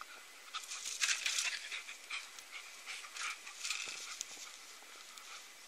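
A dog panting and snuffling in soft, irregular bursts, with no barking.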